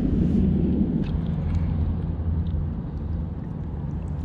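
A low, steady rumble with a constant hum, a little louder in the first second.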